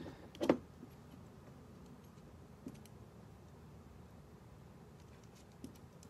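Hand tools and battery-terminal hardware being handled: one short knock about half a second in, then a few faint clicks.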